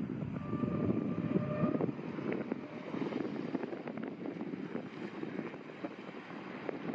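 Wind buffeting the microphone, with a faint steady tone lasting about a second and a half near the start.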